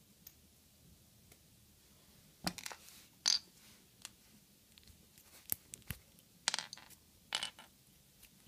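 Plastic LEGO minifigure pieces being pulled apart by hand and set down on a wooden floor: irregular small clicks and taps, starting about two and a half seconds in.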